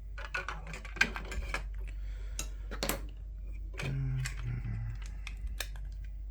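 Irregular small clicks and light rustling of plastic headset parts and tape being handled and peeled at close range, with a short low hum about four seconds in.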